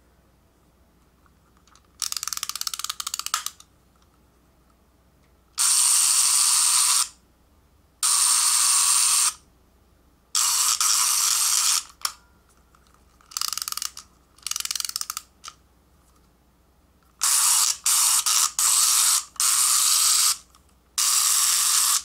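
A capsule-toy miniature electric shaver running in about ten short bursts of one to one and a half seconds each, starting and stopping abruptly, with pauses between.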